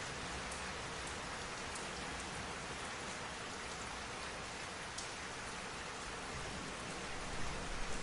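Steady rain, with a few sharp drop ticks, and a low rumble of thunder starting near the end.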